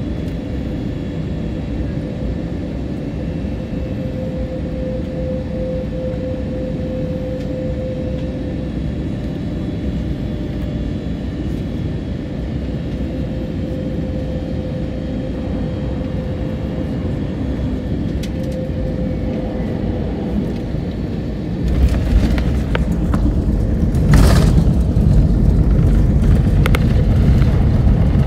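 Airliner cabin noise on final approach: a steady engine drone with a faint whine. About 22 seconds in the plane touches down and the low rumble of the wheels on the runway rises sharply, with a knock a couple of seconds later and a louder rumble as it rolls out.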